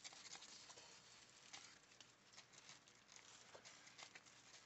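Faint paper handling: soft rustles and small ticks as sticker-book pages are turned and smoothed down.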